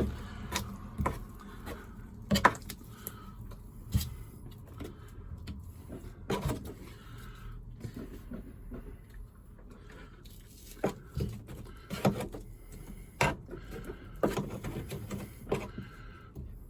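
Irregular knocks, taps and scraping from handwork applying fiberglass body filler to a car's floor pan, a dozen or so sharp taps spread unevenly over several seconds.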